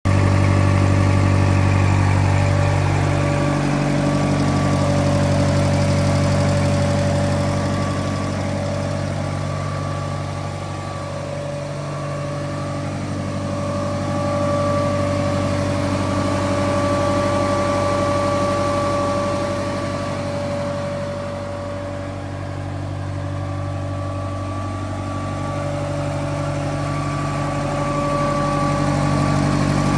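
New Holland L-35 skid loader's air-cooled four-cylinder Wisconsin engine idling steadily, its level slowly swelling and fading.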